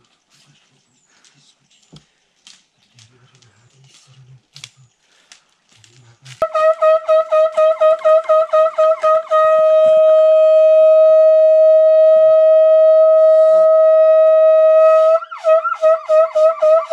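A horn blown on a single steady pitch. It comes in about six seconds in as a string of quick pulses, about three a second, then holds one long note for about six seconds, then breaks into quick pulses again near the end. Before it there are only faint clicks and knocks.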